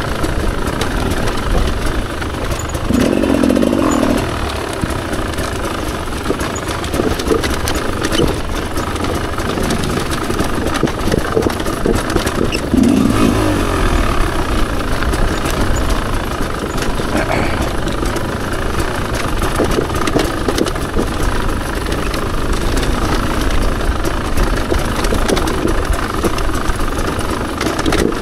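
Rieju MR300 two-stroke enduro motorcycle engine running while riding off-road, continuous throughout.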